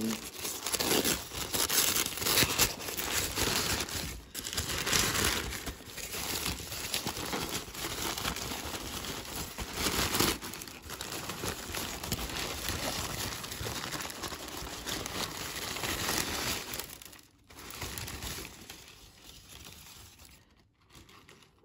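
Thin packing paper crinkling and rustling as hands unwrap a potted orchid from it, in irregular surges, dying away near the end.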